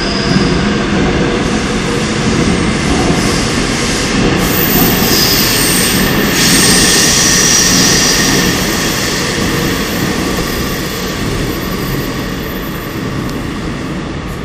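Seoul Subway Line 5 5000-series IGBT-inverter electric train running on the rails as it departs, with high whining tones coming in about four seconds in. It swells to its loudest midway, then fades steadily as the train pulls away.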